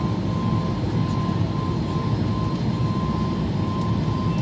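Boeing 737 MAX 8's CFM LEAP-1B jet engines running steadily: an even deep rumble with a thin, steady high tone over it.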